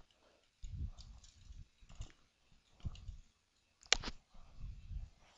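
Computer keyboard keys clicking one at a time as a command is typed, each stroke with a dull low thud under it. There is a sharper, louder keystroke about four seconds in.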